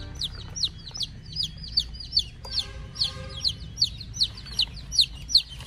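Chicks peeping: a rapid, continuous series of short, high, falling peeps, several a second, over a low steady hum.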